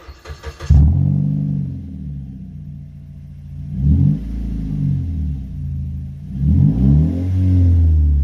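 Vehicle engine cranked briefly and catching about a second in, then idling through an aftermarket exhaust. It is revved twice, about four and seven seconds in, its pitch rising and falling back each time.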